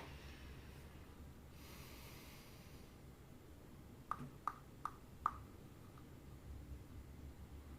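Quiet handling sounds from unboxing small toys: a soft rustle, then four light clicks about half a second apart.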